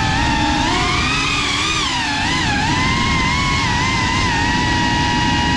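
FPV quadcopter's motors and propellers whining, the pitch wavering up and down with throttle, over a rush of wind and prop wash.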